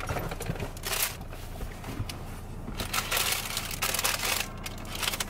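A paper wrapper rustling and crinkling in irregular bursts as it is handled in someone's hands, over a low steady hum.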